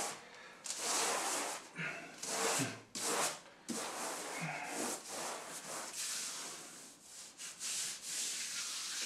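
Wallpaper brush swept in a run of short strokes over freshly pasted woodchip wallpaper, pressing it down onto the wall: a series of dry brushing sounds, each stroke about half a second to a second long.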